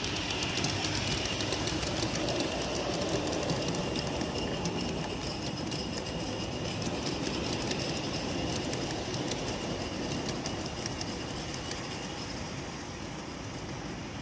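Large-scale garden model train rolling past on curved track, the passenger cars' wheels clicking rapidly and steadily over the rails.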